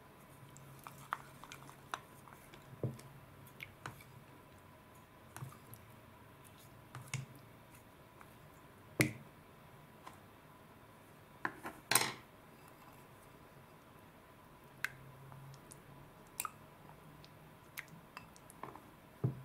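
Sparse light clicks and taps of wooden chopsticks and fingers against a clear bowl as orange slime is stirred and handled. The loudest knocks come about nine and twelve seconds in.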